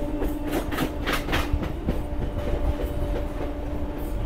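Electric local train (EMU) running along the track, heard from its open coach door: a steady rumble and hum, with wheels clattering over rail joints about half a second to a second and a half in.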